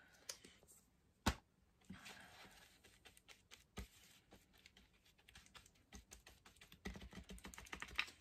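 Faint, irregular taps and light scrapes of a stencil brush dabbing and stirring paint on a paper plate, working the excess paint off the bristles. One sharper click comes about a second in, and the taps come faster near the end.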